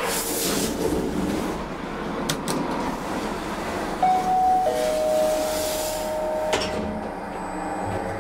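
ALT machine-room-less traction elevator travelling, heard from inside the glass car: a steady rushing of the ride, a held machine whine that steps down in pitch over a couple of seconds from about halfway, and a sharp click as the car stops.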